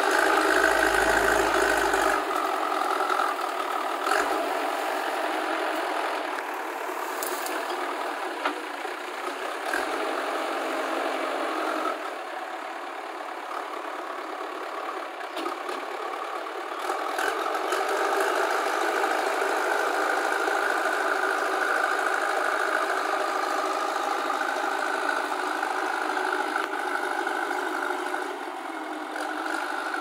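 Diesel engine of a JCB 3DX backhoe loader running under load as the machine pushes soil with its front loader bucket. The engine note is steady, eases off about twelve seconds in and gets louder again about eighteen seconds in.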